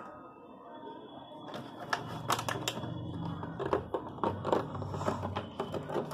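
A dog chewing a clear plastic water bottle: rapid, irregular crackling and crunching clicks of the thin plastic, coming thick from about a second and a half in.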